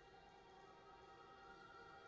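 Faint, steady electronic tones held together like a soft chord: the computer part of a piece for flute and electronics, with the flute not yet playing.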